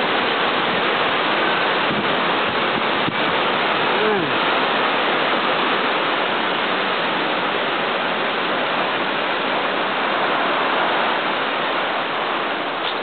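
Heavy thunderstorm rain pouring down with strong wind gusting through the trees: a loud, steady rush.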